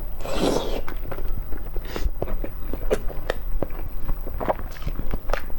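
Close-miked eating of eggs: a short rasping scrape about half a second in, then scattered small clicks and crunches of biting and chewing.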